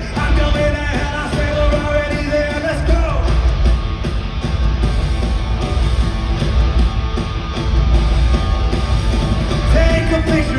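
Live rock band playing loudly through an arena PA, recorded on a phone, with heavy bass and drums. A sung vocal line runs over the first three seconds, gives way to the band alone, and comes back near the end.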